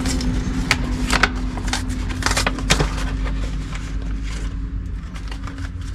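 Short sharp clicks and light clinks of parts being handled while a carburettor gasket is swapped, over a steady low motor-vehicle rumble that slowly fades.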